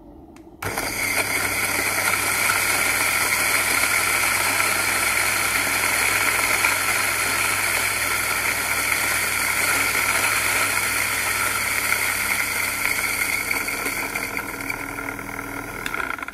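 Electric coffee grinder switching on about half a second in and running steadily as it grinds coffee beans into a glass, then cutting off right at the end.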